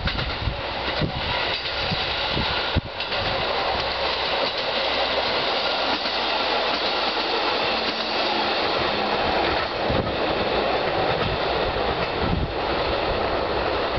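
Two-car JR Kyushu KiHa 125 diesel railcar running past: a steady rush of wheel-and-rail noise, with a few sharp clicks as the wheels pass over rail joints.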